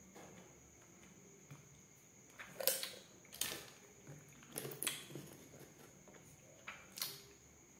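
A few sharp clicks and crackles at irregular spacing, from small glutathione supplement pieces being handled and put to the mouth.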